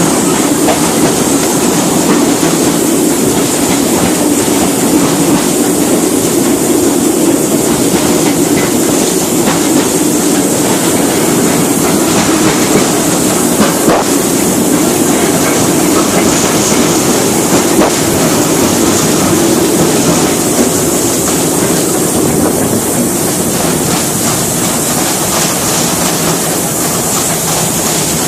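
Small narrow-gauge tourist train running along the track: a steady, loud rolling rumble with the clickety-clack of wheels over rail joints.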